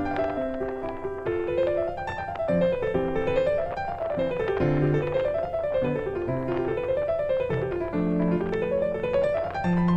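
Background piano music: runs of notes rising and falling over and over, over lower held notes.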